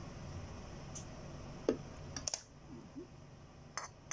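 A few light clicks and taps of a spoon against a bowl as it is handled, over a steady low hum.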